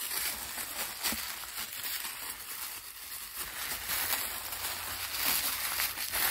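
Crinkly packaging rustling and crackling steadily as a small gift is unwrapped by hand.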